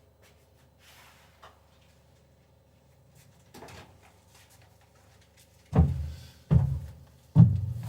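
Three dull, heavy thumps about a second apart near the end, like objects being handled or set down, over a faint steady hum.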